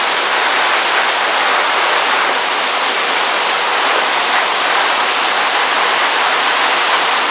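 Torrential rain pouring down in a steady, dense hiss that holds at one level throughout.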